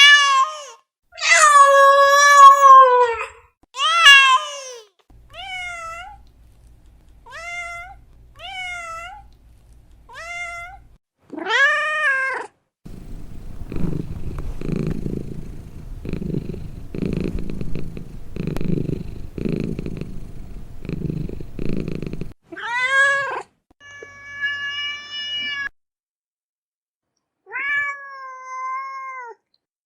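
Cat meowing: a long drawn-out meow, then a string of short, higher meows, then about nine seconds of rhythmic purring, about one pulse a second, followed by several more meows near the end.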